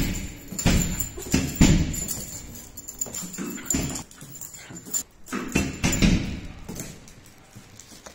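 A small dog's paws and claws tapping and landing on a hard marble floor as it jumps about on its leash: a string of irregular sharp taps that thin out and fade near the end.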